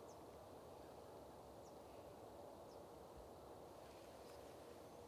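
Near silence: a faint steady outdoor background with a few short, faint high chirps from small birds, about one a second.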